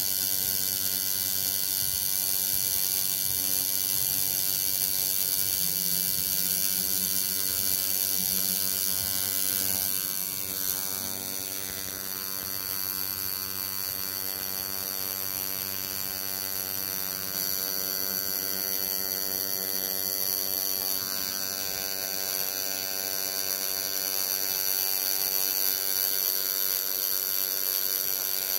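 Home-rebuilt coil tattoo machine fitted with a single needle, buzzing steadily as it lines small script lettering into skin.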